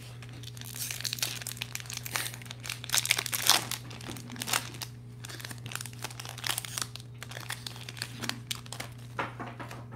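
Foil trading-card pack wrapper crinkling and tearing as it is ripped open by hand, in irregular crackles that are loudest about three seconds in, then rustling as the cards are pulled out.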